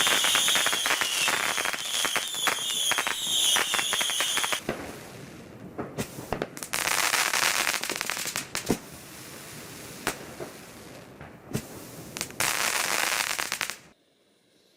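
Fireworks going off: a few seconds of dense crackling under a wavering high whistle, then spells of hissing and a few single sharp bangs, cutting off abruptly near the end.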